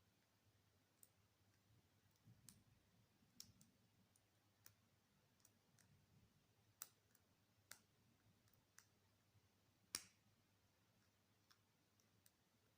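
Faint, scattered clicks of a hook pick working the pin stack of an Ace round-body padlock under light tension, the loudest about ten seconds in. The pins are serrated security pins, which the picker feels fighting him every step of the way.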